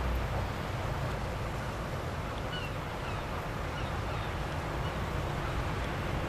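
Steady low rumble and rushing noise of a fast catamaran ferry running in across open water, mixed with wind.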